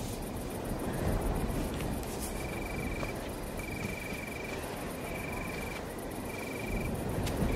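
A cricket trilling at night: short, evenly pulsed trills at one high pitch, each well under a second, repeating with short gaps. Underneath runs a steady low rustling noise.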